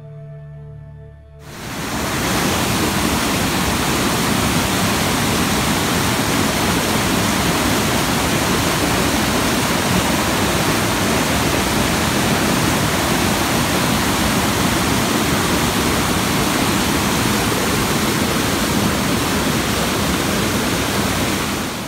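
Loud, steady rush of whitewater pouring over a rocky river cascade. It cuts in suddenly about a second and a half in, after soft ambient music.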